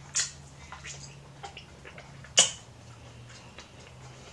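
Close-up eating sounds of corn on the cob being chewed: short wet smacks and clicks, two standing out, one just after the start and the loudest about two and a half seconds in, over a low steady hum.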